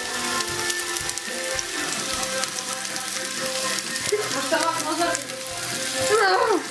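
Chopped red onion sizzling as it fries in oil in a frying pan, with pieces scraped off a plate into the pan. A short falling voice-like sound, the loudest moment, comes near the end.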